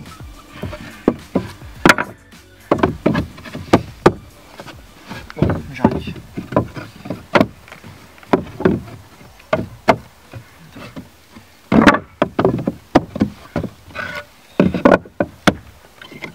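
Wooden floorboards being fitted into a gap by hand: irregular knocks and clatters as boards are set down, shifted and tapped against the wooden floor.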